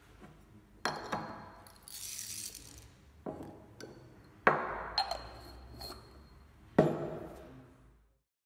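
A Comandante hand coffee grinder and its glass bean jar knocking and clinking as they are handled and set down on a wooden table, with a short rattle of coffee beans shifting inside about two seconds in. The loudest knocks come about four and a half and almost seven seconds in.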